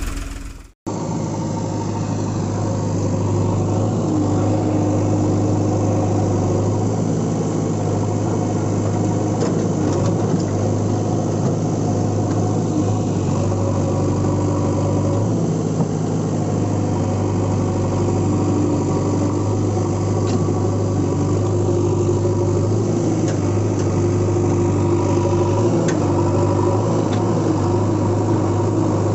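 Tractor-type engine idling steadily with a constant low hum. It starts after a brief silent break about a second in.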